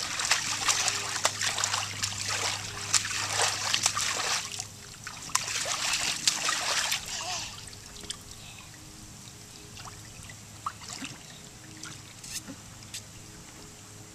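A small child splashing water in a bird bath: busy splashing and spattering for about seven seconds, with a short break partway, then only scattered small splashes and drips.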